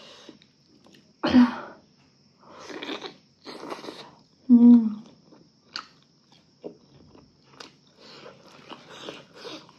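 A person chewing food close to the microphone, with wet mouth noises and small clicks. There are two short voiced sounds from the throat, about a second in and again near the middle.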